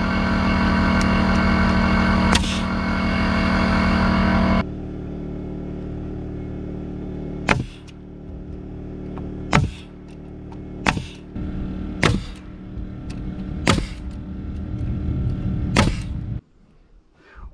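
Portable generator running with a steady hum, loud for the first few seconds and lower after that. Over it a pneumatic framing nailer drives nails into 2x4 framing: one sharp shot about two seconds in, then six more a second or two apart.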